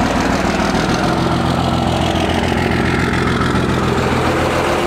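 12-valve Cummins 5.9 inline-six turbo diesel, freshly fitted with a bigger turbo, running steadily at low speed as the truck rolls past close by. The owner can't tell whether its new note means an exhaust leak or is just how it runs with the new turbo.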